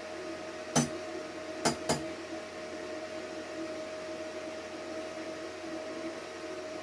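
MMA-300 inverter stick welder humming steadily with its cooling fan running, a held tone over a light hiss. Three sharp metallic taps land about a second in and just before two seconds in, the last two close together.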